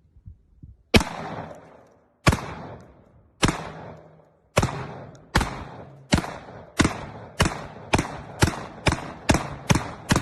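A firearm fired in a string of about fourteen shots, each a sharp crack with a short echoing tail, the shots coming faster and faster toward the end.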